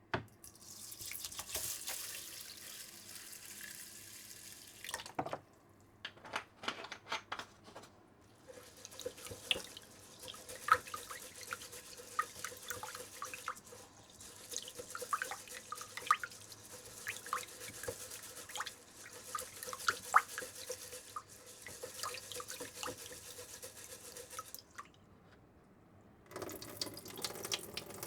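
Tap water running into a kitchen sink while something is rinsed by hand, with scattered small clicks and splashes. The flow stops about five seconds in, giving way to a few separate knocks, then runs again and stops once more just before the end.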